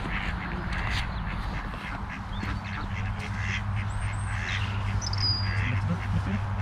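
Ducks quacking on the lake, short repeated calls, over a steady low hum.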